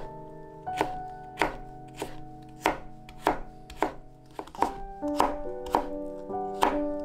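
Chef's knife chopping carrot into thin matchsticks on a cutting board: sharp, evenly paced knocks of the blade on the board, about one and a half a second, over soft background music.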